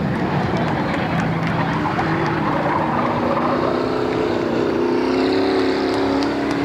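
Stock race cars' V8 engines running hard on a dirt oval. The engine pitch climbs through the middle as the cars accelerate past.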